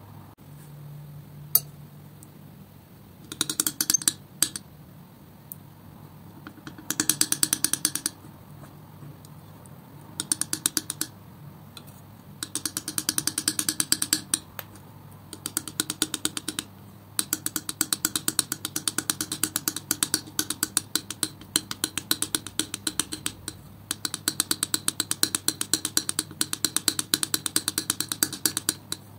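Palette knife mixing thick wet acrylic paint: rapid sticky clicking and smacking as the blade presses into and lifts off the paint. It comes in short bursts at first and runs almost without a break over the second half.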